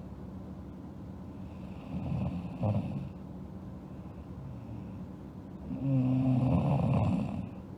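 A sleeping girl snoring: two snores about four seconds apart, the second one longer.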